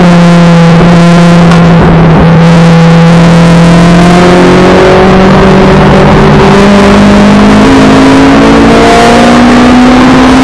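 Honda Cup race car's engine heard from inside the cabin, very loud. It holds a steady pitch for about the first half, then climbs slowly as the car accelerates through the gear, over road and wind noise.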